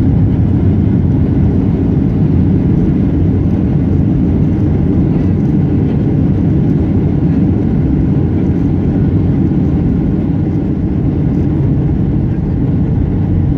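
Steady, loud low rumble inside a jet airliner's cabin during the landing rollout on the runway.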